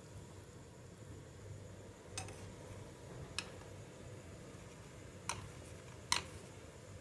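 A metal spoon clinks four times, sharp and short, against the steel pot and the glass jar of seasoning it is dipped into; the last clink, near the end, is the loudest.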